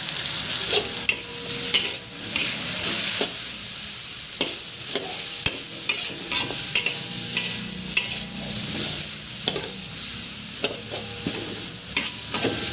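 Sliced onion sizzling in hot oil in a wok while a metal spatula stirs and scrapes it, with irregular clicks and scrapes of the spatula against the pan over a steady frying hiss. The onion is being fried until it wilts.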